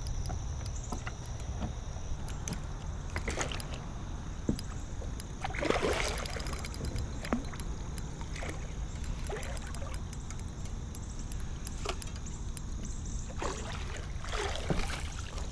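Hooked carp splashing at the surface now and then as it is worked into a landing net, with the biggest splashes about six seconds in and near the end, over a low steady rumble.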